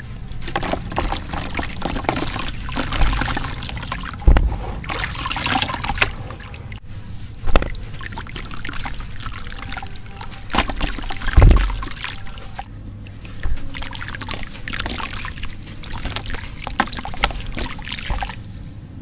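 A cake of pure sand crumbling in a tub of water: wet sand trickling and pouring from hands back into the water, with splashing and a few louder low plops as chunks drop in.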